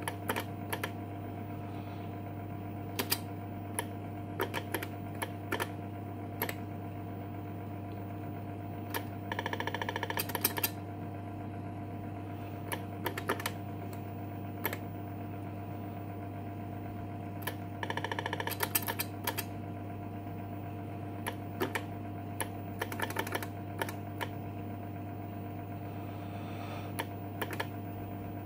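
Keystrokes on an IBM Displaywriter 6580 keyboard: scattered single key clicks, broken by a few quick runs of rapid clicking, over a steady electrical hum.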